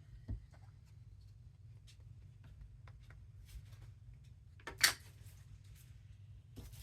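Rubber stamps being handled and pressed onto paper on a tabletop: faint scattered clicks and taps, a soft thump just after the start and one sharp knock about five seconds in, over a low steady hum.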